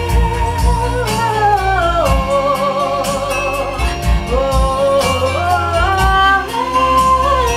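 Woman singing a slow melody in long held notes with vibrato, over recorded accompaniment with a bass line and a steady beat. The pitch steps down early on the held notes and climbs again about midway and near the end.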